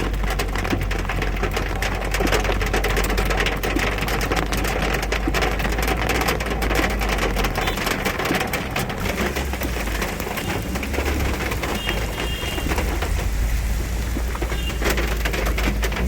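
Heavy monsoon rain falling, with countless drops pattering on a hard surface and a steady low rumble underneath.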